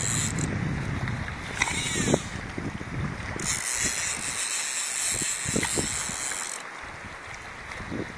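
Wind buffeting the microphone with a gusty low rumble over small waves lapping at a boat's hull, with a brief knock about two seconds in.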